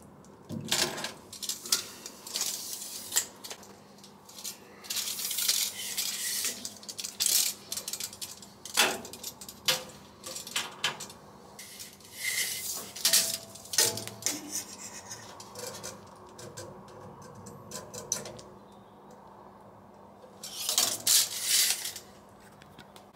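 Hand work with a metal tape measure and a sheet of card: scattered clicks and light metallic clatter, with short scraping rustles about five, twelve and twenty-one seconds in as the card is measured and cut to rough shape.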